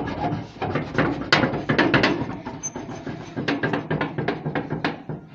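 A door being knocked on and rattled: a string of sharp, irregular knocks and clatters.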